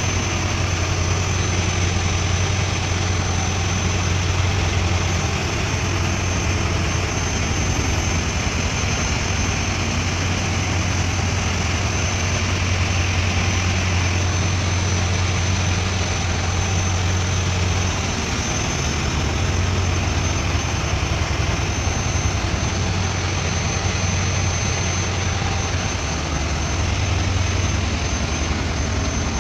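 Steady drone of a cargo ship's running engine-room machinery, heard inside the engine control room: a strong low hum with a thin, steady high whine above it.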